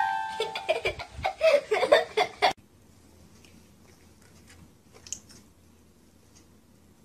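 A toy electronic keyboard's held note fades out as a dog paws at its keys, among short bursts of someone giggling. About two and a half seconds in, the sound cuts off to near silence with a few faint clicks.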